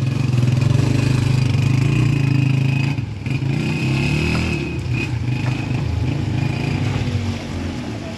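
Motorcycle engine running under way, its pitch climbing a little past two seconds in, then dropping briefly before it runs on steadily.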